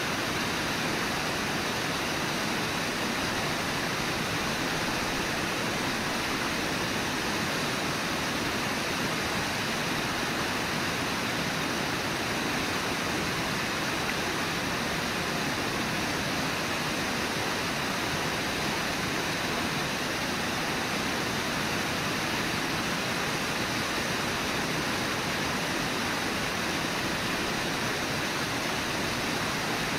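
Brooks River rushing steadily, an even, unbroken wash of water noise.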